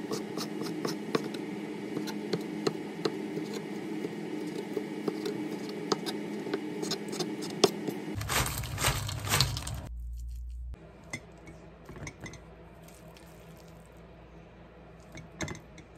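Kitchen knife slicing a thin egg omelette into strips on a bamboo cutting board: irregular knife taps against the wood over a steady hum. About eight seconds in comes a louder burst of noise lasting about two seconds, then after a cut a quieter stretch with a few light clicks.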